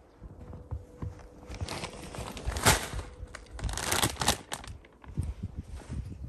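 Plastic packaging crinkling and rustling as it is handled, in irregular bursts that are loudest in the middle.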